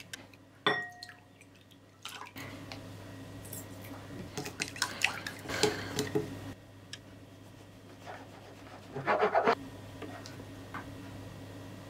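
Eggs beaten with wooden chopsticks in a glass bowl: a single sharp clink with a short ring about a second in, then quick runs of chopsticks clicking against the glass, with another short flurry of clinks near the end.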